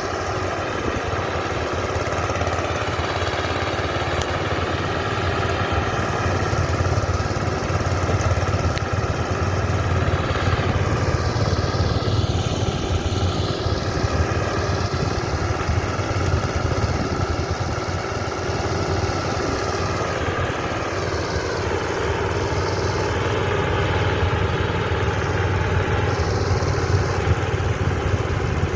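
Engine of a rice-harvesting machine running steadily under load, its pitch wavering slightly now and then.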